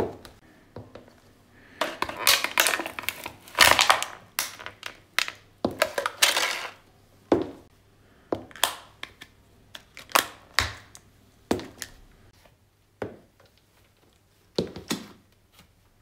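A high-heeled shoe crushing small plastic objects: a dense few seconds of crackling and crunching, then a string of separate sharp cracks and snaps, often two close together, as a row of small flip-top plastic cases breaks under the heel one by one.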